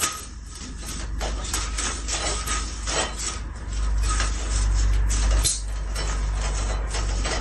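Irregular clattering and knocking, several sharp knocks a second, over a steady low rumble that swells about four seconds in.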